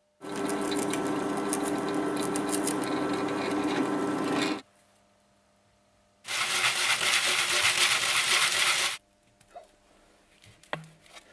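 Drill press boring centre holes through octagonal pine blocks: two steady runs of the motor and bit, the first about four seconds long, the second starting about six seconds in and lasting under three seconds. A few light knocks near the end.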